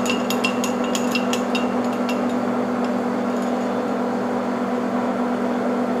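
Monarch engine lathe running with its chuck spinning, a steady hum, while the center drill in the tailstock is brought up to the workpiece. A quick run of sharp ticks sounds in the first couple of seconds.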